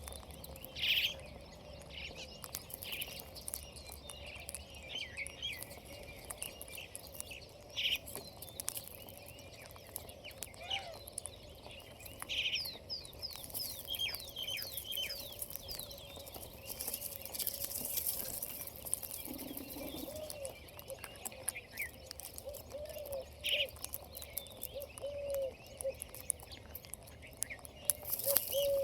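Ringneck parakeet chirping and calling in short, sharp notes, with a quick run of falling whistles about halfway through. Low, soft cooing calls come in during the second half.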